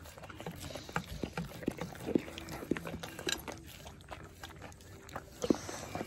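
Two dogs licking a plate clean: irregular wet tongue laps and small clicks of tongue and teeth against the plate.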